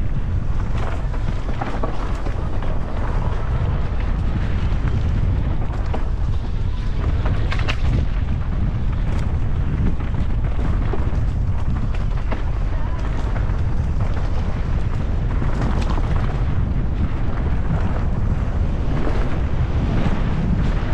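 Wind rumbling on the microphone as a mountain bike rides down a rocky dirt trail, with tyre noise and occasional sharp clatters from the bike over rough ground.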